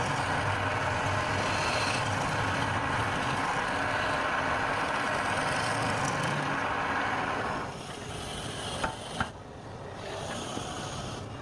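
Wood lathe running with a tool cutting the spinning wood, a steady loud noisy sound over a low hum. About two-thirds through, the cutting noise drops away and two sharp clicks follow.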